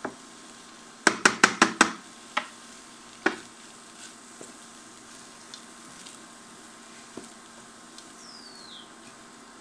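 Wooden spoon stirring and knocking against a metal wok: a quick run of about six knocks about a second in, then a few single taps, over a faint sizzle. The sizzle is vegetables cooking with flour in butter as a roux, stirred constantly so the flour cooks without burning.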